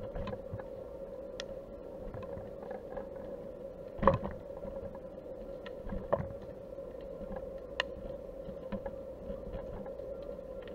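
Underwater sound: a steady low hum with scattered clicks and knocks, the loudest knock about four seconds in, another about two seconds later, and a sharp click near eight seconds.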